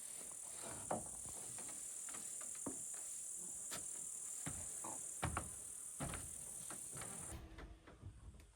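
Insects making a steady high-pitched drone, which stops suddenly near the end, with scattered knocks and thuds.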